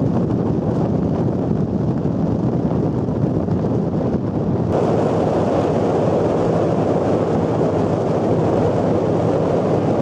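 Steady rush of wind and water aboard a patrol ship under way, with a low engine drone underneath and wind buffeting the microphone. The rushing grows a little brighter about five seconds in.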